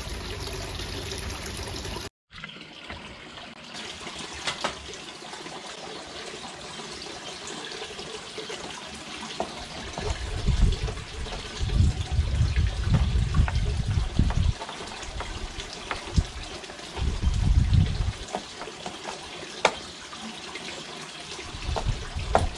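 A steady outdoor hiss with low gusts of wind buffeting the microphone, and small metallic clicks and rattles as a metal hanging chain is handled overhead on a pergola beam.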